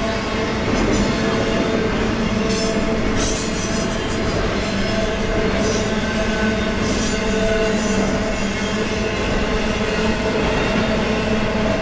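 Double-stack intermodal well cars rolling past at steady speed: a continuous rumble of steel wheels on rail with several held tones from squealing wheels over it. A couple of brief high hissy stretches come a few seconds in.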